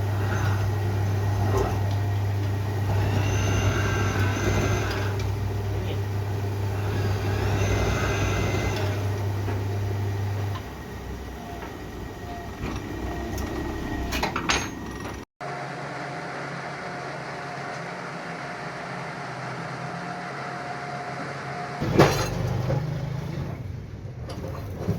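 Truck engine running steadily with a deep hum; the sound changes abruptly about two thirds of the way through to a quieter steady running, with a sharp knock near the end.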